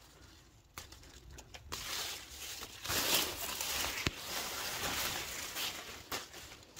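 Bean vines and leaves rustling and crackling as hands push through the plants, loudest about three seconds in, with a few sharp snaps.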